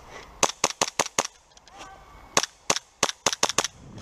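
Airsoft pistol firing: two quick strings of sharp pops, about five shots in the first second and about six more in the second half.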